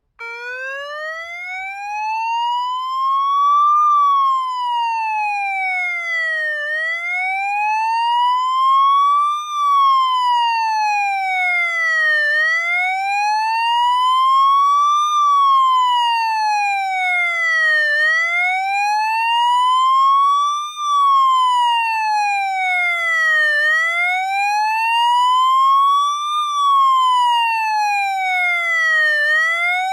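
Police motorcycle siren sounding a slow wail: the pitch rises for about three seconds and falls for about two, repeating about five times, with no engine or traffic heard under it.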